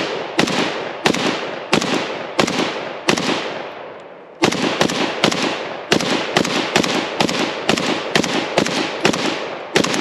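AK-pattern rifle firing rapid single shots, each with a short echoing tail. There are five evenly paced shots, a pause of about a second and a half, then a quicker string of about fifteen shots at roughly three a second.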